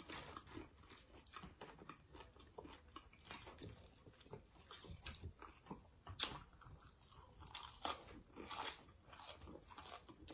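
People chewing and biting into crisp fried catfish and fries: faint, irregular crunches and mouth sounds, several a second.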